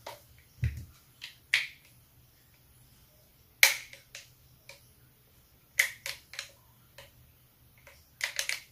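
Sharp clicks and knocks of AR-pattern shotgun parts being handled: a dull thump under a second in, scattered single clicks, the loudest about three and a half seconds in, and a quick run of four clicks near the end.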